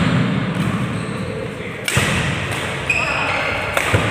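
Badminton rackets striking a shuttlecock during a doubles rally, with sharp hits about two seconds apart ringing in a large hall.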